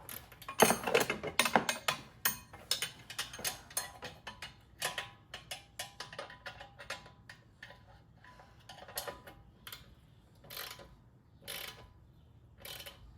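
A series of sharp clicks and ticks, in a quick irregular run for the first few seconds and sparser after that.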